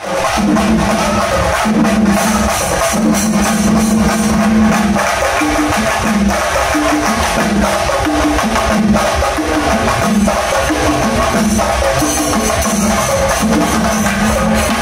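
Shingari melam ensemble playing: many chenda drums beaten in a fast, dense rhythm with ilathalam cymbals, over a low repeating tune.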